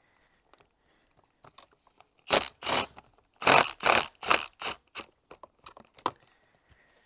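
Loosening the 14 mm top fork clamp bolts on a Suzuki DR650: a run of about eight short, loud scraping bursts over three seconds, with a few light clicks and knocks either side.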